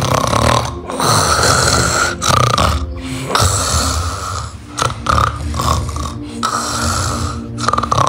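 A man snoring loudly open-mouthed: a string of rasping snores, one every second or two.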